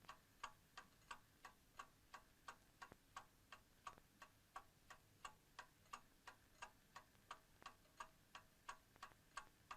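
Alarm clock ticking quietly and evenly, about three ticks a second.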